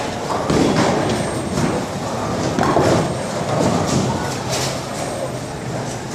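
Bowling ball rolling down the lane, with scattered clatter of pins and balls from neighbouring lanes.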